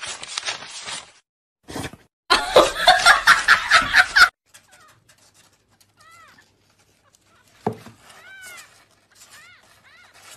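A loud two-second burst of rapid pulsing sound in the first half, then a young kitten mewing: several faint, short, high calls, with a soft thump a little before the last of them.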